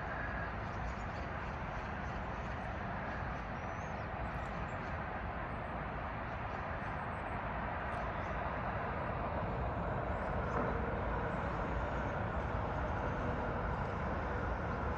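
Steady rumbling hum of city traffic, with a faint steady tone joining in about ten seconds in.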